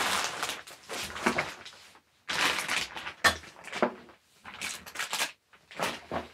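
Plastic action-camera accessories and their packaging being handled: a run of short rustles and clatters with brief gaps between them.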